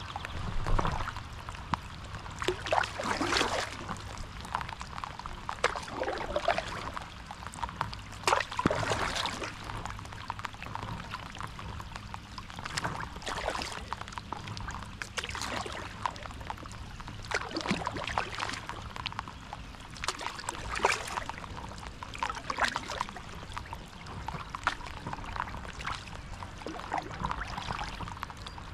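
Stand-up paddle board paddle strokes: the blade dips and pulls through the water every two to three seconds, with water splashing and trickling off it between strokes.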